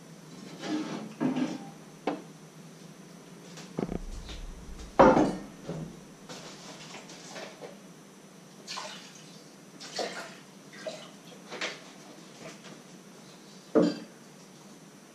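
Kitchen things being handled on a counter: a string of separate clinks, knocks and clatters of crockery and utensils. The loudest, with a dull thud, comes about five seconds in, and another sharp clatter comes near the end.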